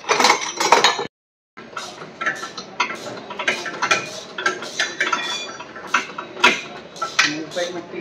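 Steel wrenches and sockets clinking and knocking against metal as the bolts holding the car's front subframe are undone from below, a run of irregular sharp clinks. The sound breaks off completely for about half a second about a second in.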